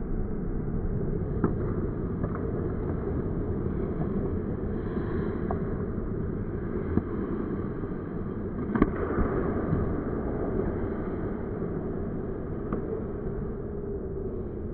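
Muffled, steady rink rumble picked up by a camera mounted behind a hockey goal. A few sharp clacks of sticks and pucks on the ice come through it, the loudest about nine seconds in.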